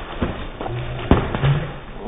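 Foam pool noodles smacking and water splashing in a pool during a noodle fight, with a few sharp smacks, the loudest about a second in.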